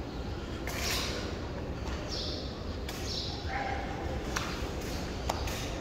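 Room tone of a large reverberant hall: a steady low rumble with indistinct distant voices and two sharp clicks near the end.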